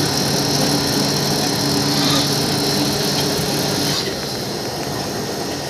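Veneer peeling lathe running: its electric motor and chain-driven spiked rollers make a steady hum with mechanical rattle. It drops a little quieter about four seconds in.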